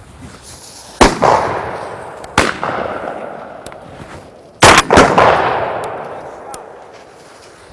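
Shotgun shots at a flushing covey of quail: a loud shot about a second in, a fainter one just over a second later, then two loud shots close together near the middle, each trailing off in a long echo.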